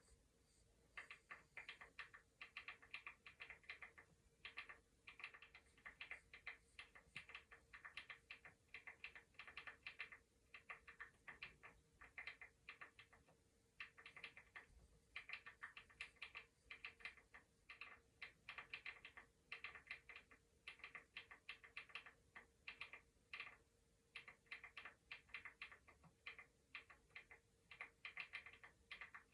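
Faint computer keyboard typing: quick runs of clicks broken by short pauses, over a faint steady hum.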